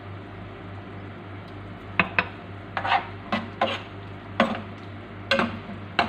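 Metal spoon stirring a simmering sweet and sour sauce in a nonstick frying pan, with a steady sizzle beneath. From about two seconds in, the spoon scrapes and knocks against the pan about eight times.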